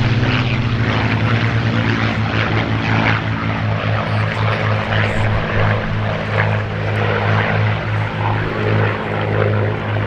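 Piston-engined warbird fighters, Supermarine Spitfires chasing a Focke-Wulf 190, droning overhead with a steady low engine note that throbs a few times a second.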